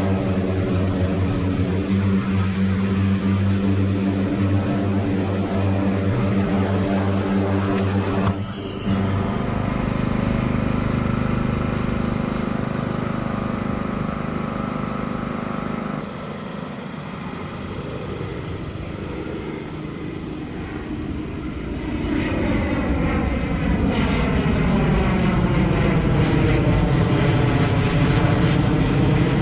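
Motor engine running steadily, with abrupt changes in its sound about 8 seconds and 16 seconds in. In the last several seconds its tone sweeps down and back up.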